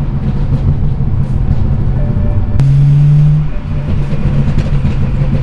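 Tuned BMW 335i turbocharged inline-six on a stage 2 MHD flash, engine and exhaust droning steadily inside the cabin while driving. The drone swells again with a single sharp crack about two and a half seconds in, then eases off.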